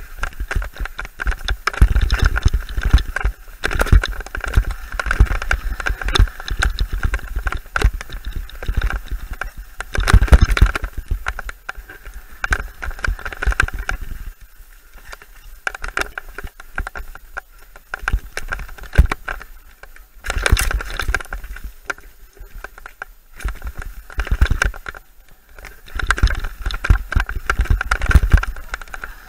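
A mountain bike riding fast down a rough dirt and rock singletrack, heard from the rider's own camera. Dense rattling and knocking from the bike over bumps and low rumbling buffeting. It eases into quieter stretches about halfway through and again a little later.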